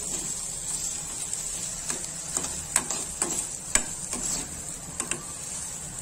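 A metal spoon stirring rice in a kadhai, scraping and knocking against the pan in irregular clicks every half second or so, over a steady faint hiss.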